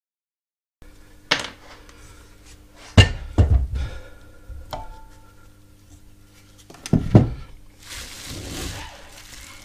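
A metal mobility scooter motor being handled on a workbench: several sharp knocks and thuds as it is set down, picked up and turned over, the loudest about three seconds in, then a soft crinkling rustle of bubble wrap near the end.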